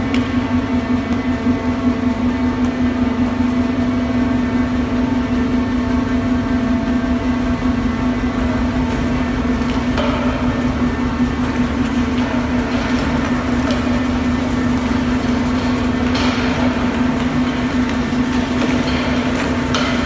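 Earthquake shake table running under a concrete building model: a loud, steady machine hum with a fast low rattle of the vibrating table and model underneath.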